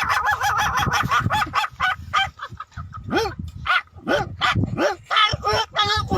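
A person's voice imitating small puppies: a fast run of short, high yelps and whimpers, several a second, some sliding up and down in pitch.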